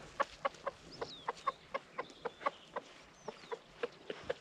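Rooster giving a rapid string of short clucking food calls, about four a second: tidbitting, calling the piglets over to a worm he has found.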